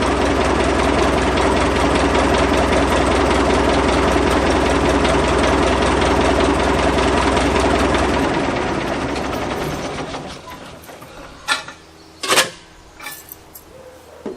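Caterpillar 941 tracked machine's diesel engine running steadily, then winding down and stopping about eight to ten seconds in: it is being shut off. A few sharp knocks follow near the end.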